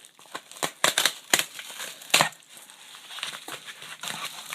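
Parcel packaging being torn open and handled: irregular crackles, crunches and snaps of packing material.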